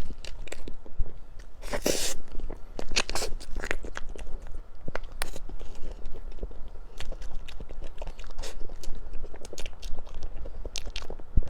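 Close-up biting and chewing of crispy food, with many irregular crunches; the loudest bites come about two and three seconds in.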